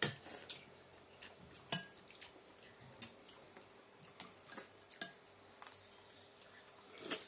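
Metal spoons and forks clinking and tapping against ceramic and glass soup bowls while eating noodle soup: scattered sharp clicks every second or so, the loudest a little under two seconds in.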